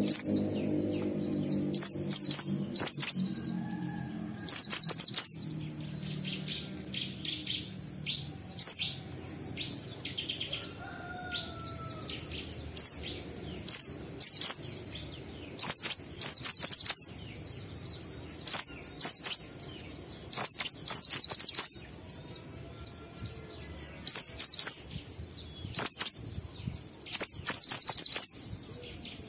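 Pleci (white-eye) singing its ngalas song: repeated short bursts of two to five rapid, high, downward-sweeping chirps, a burst every second or two.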